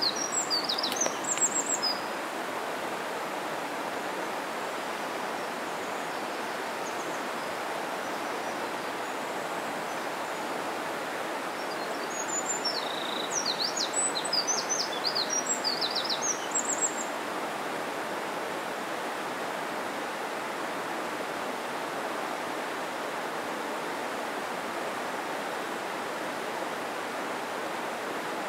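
Steady rush of a mountain stream, with a small songbird's quick high chirps briefly at the start and again in a longer burst from about twelve to seventeen seconds in.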